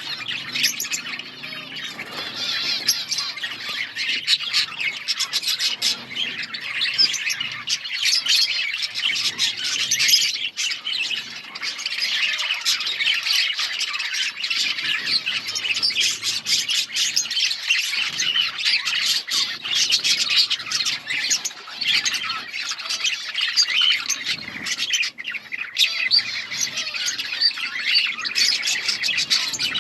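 A flock of budgerigars chirping and chattering together, a dense, continuous mix of calls and squawks.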